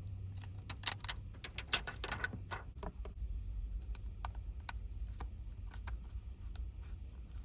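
Irregular small clicks and taps, many in the first three seconds and fewer after, over a steady low hum.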